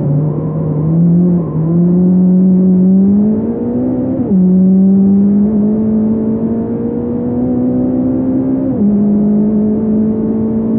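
Fiat Punto race car engine heard from inside the car, pulling hard under acceleration: its pitch climbs steadily and drops sharply twice, about four and nine seconds in, as the driver shifts up a gear.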